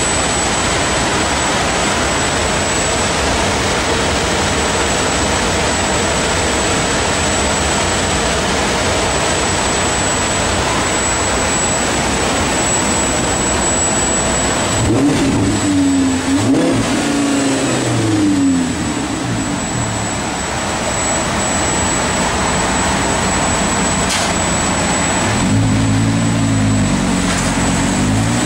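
Audi R8's 5.2-litre V10 running through a stainless-steel Supersprint exhaust on a chassis dynamometer, with a loud steady rushing noise for about the first half. About halfway through, and again near the end, the engine revs rise and fall.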